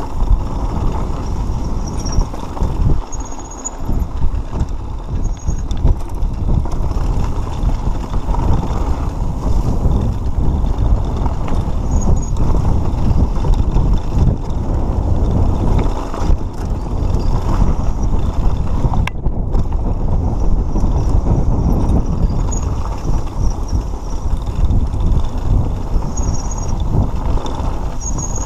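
Mountain bike rolling fast over a rocky dirt trail: a continuous jittery rumble and rattle of knobby tyres on loose stones, with the bike shaking over the rocks.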